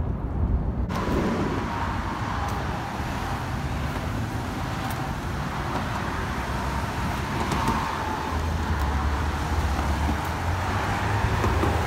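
Road traffic passing close by: a steady rush of tyres and engines, with a deeper rumble from about eight seconds in.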